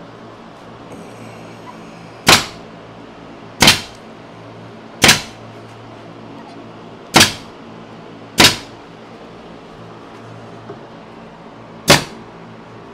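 Staple gun firing six single shots, one to three and a half seconds apart, driving staples into a cabinet box.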